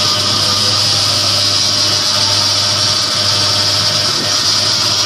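Lely Astronaut A4 milking robot's machinery running: a steady low hum under a loud, even hiss of air.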